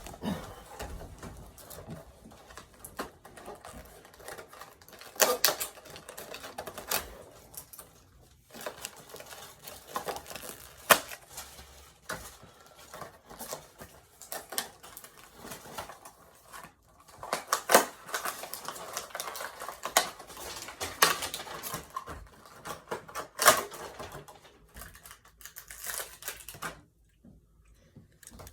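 Irregular clicking, tapping and knocking of small plastic toys and their packaging being handled, with several sharper clacks along the way; it goes quiet near the end.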